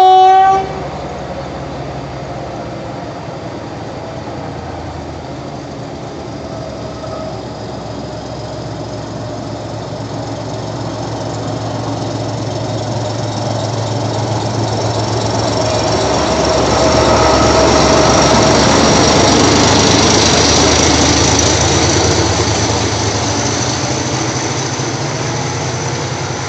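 Narrow-gauge diesel locomotive of the Kangra Valley toy train: a short horn blast at the very start, then the engine running steadily as the train pulls out, growing louder to a peak about two-thirds of the way through and then easing off, with a faint high steady squeal on top.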